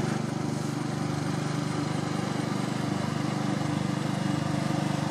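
An engine running steadily at a constant speed: a low, even drone.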